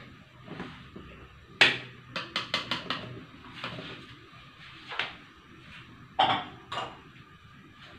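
Sharp clicks and metal knocks at a gas stove being lit under a wok of oil: one loud click, then a quick run of about five clicks, then a few scattered knocks.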